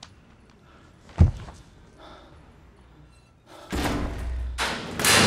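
Door and impact sound effects from a film soundtrack: one heavy thump about a second in, then from about three and a half seconds a louder, longer clatter of slamming and rushing noise.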